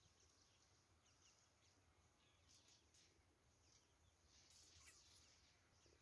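Near silence: faint outdoor ambience with a few faint, short, high bird chirps, a little more around two-thirds of the way in.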